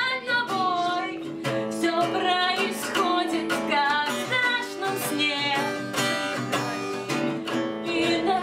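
Background music: a song with plucked and strummed guitar and a singing voice.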